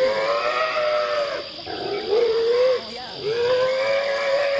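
Wild boar squealing in distress while a tiger grips it: about three long, high calls, each a second or more, with short breaks between them.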